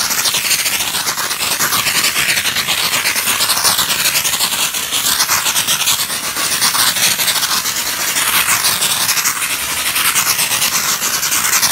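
Steam gun of a 12-bar LPG steam car washer blasting wet steam onto a car body: a loud, continuous hiss with a rapid pattering of water. The pattering comes from the dry/wet control set to maximum, so the steam carries a lot of water; it is not a sign of unstable steam.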